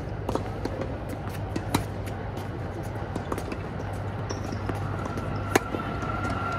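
Tennis ball struck by rackets during a singles rally on a hard court: a sharp pock about two seconds in and a louder one near the end, with lighter taps and footfalls between. A steady low hum runs underneath.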